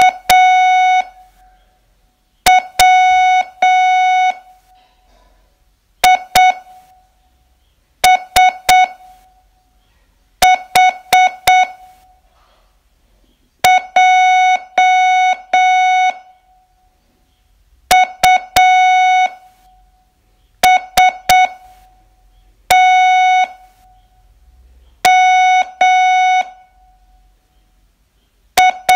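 Morse code in a single steady beep tone, sent as separate letters of a receiving test: short dits and long dahs in groups of one to four, with a pause of a second or more between letters. The letters are A, W, I, S, H and onward, the start of the test that reads A W I S H J U S T M A S T J E T M O S T 5 0 1.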